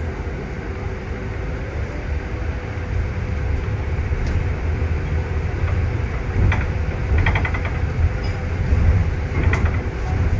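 City bus running, heard from inside the passenger cabin: a steady low engine and road rumble, with a few short rattles a little past the middle and again near the end.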